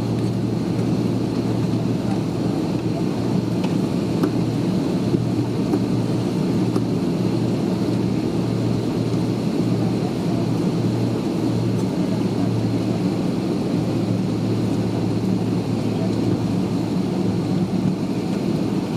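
Steady cabin noise inside an Airbus A330-200 taxiing: a low engine hum and rushing air, with a thin steady high whine above it.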